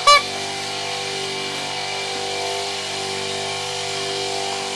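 A short, loud horn beep right at the start, then an engine running steadily at an unchanging pitch.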